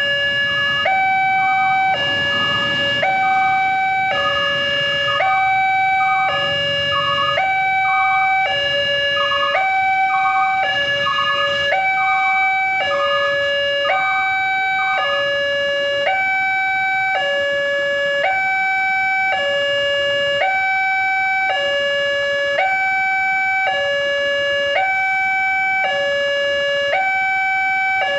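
Railway level-crossing warning alarm from the horn speaker on the crossing sign: an electronic two-tone signal switching steadily between a higher and a lower note, each held under a second, warning that a train is approaching.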